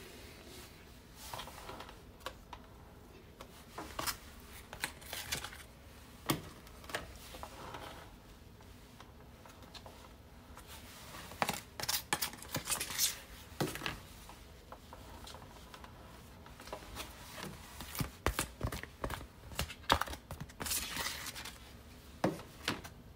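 A long knife spreading and scraping frosting around a layer cake: scattered soft scrapes, light clicks and taps of the blade. They come more thickly about halfway through and again near the end.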